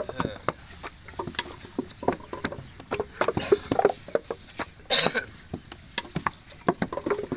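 Hand-moulding of clay bricks: wet clay slapped into wooden brick moulds and the moulds knocked down onto sandy ground, an irregular run of dull thuds and slaps with some scraping of sand. The loudest, sharper hit comes about five seconds in.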